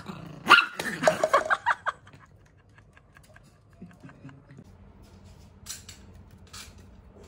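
A dog barks in a quick run of several sharp barks for about a second and a half, starting just after the opening. It comes in a squabble between two dogs over a cup of food.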